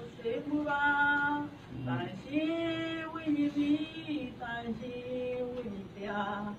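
A woman singing slowly, holding long notes of about a second each that glide between pitches.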